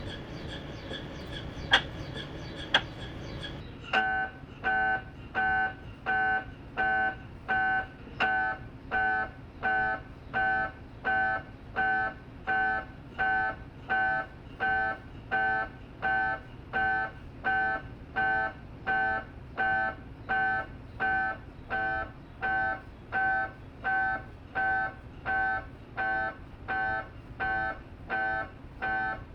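Philips 1.5T MRI scanner's gradient coils running a scan sequence: first a steady tonal hum broken by two sharp clicks, then from about four seconds in a regular train of short buzzing beeps, about three every two seconds.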